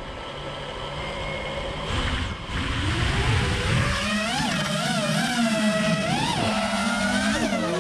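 FPV freestyle quadcopter's brushless motors (T-Motor 2206, 1750 kv, on 6S) and propellers whining. At first it is a rushing noise with a slowly rising tone; from about four seconds in, the pitch swoops up and down again and again as the throttle is worked.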